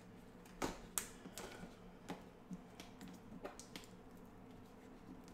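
Fingers picking and scratching at the clear tape seal on the edge of a cardboard box: a scatter of faint, irregular clicks and taps, the sharpest about a second in.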